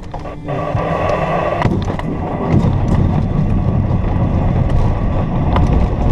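Cockpit noise of a PIK 20 glider on aerotow: a heavy steady rumble with scattered knocks and rattles, wind rushing past the canopy, and the steady drone of the tow plane's engine.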